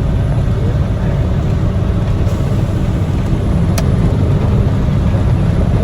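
Steady low drone of a semi-truck's engine and road noise inside the cab while driving at highway speed, with a single sharp click near the middle.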